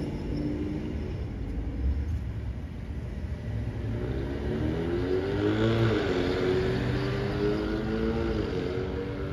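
A motor engine running, its pitch climbing about midway, dropping sharply, then dropping again near the end, over a steady low rumble.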